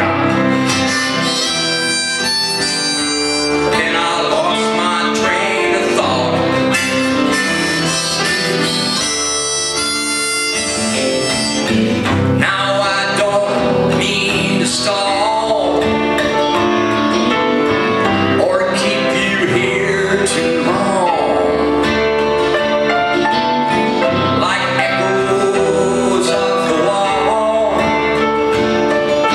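Live band music with no break: acoustic guitar, keyboards and electric guitar playing, with held, bending melody notes carried over the accompaniment.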